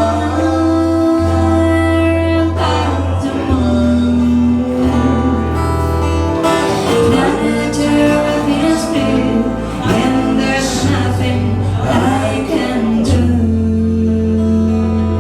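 Live band music: strummed acoustic guitar and bass guitar with a singing voice holding long notes.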